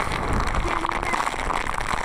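Squall: heavy driving rain hissing on the water and boat, with gusty wind buffeting the microphone in a steady low rumble.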